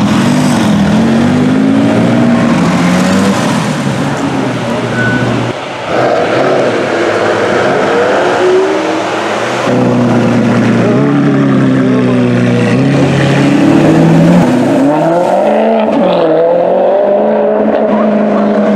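Supercar engines revving and pulling away in a few short clips joined by abrupt cuts, the engine note rising and falling in pitch. Near the start it is a Ferrari 458 Italia's V8 driving off.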